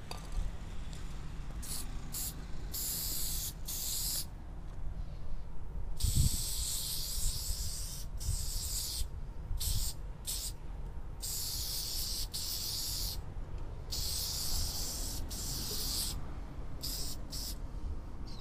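Aerosol spray paint can hissing in a series of on-off bursts, some brief and some lasting a couple of seconds, as letters are sprayed onto a wall. A low bump about six seconds in.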